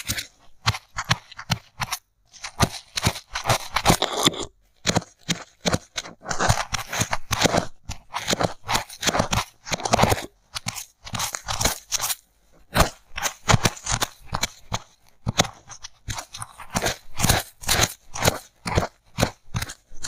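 Polystyrene foam crunching and scratching as bamboo sticks and cotton are poked and scraped in a hole in the foam block. It comes in quick, irregular strokes with a few short pauses.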